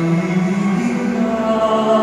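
A man singing a responsorial psalm into a handheld microphone, holding a sung line whose pitch steps up during the first second.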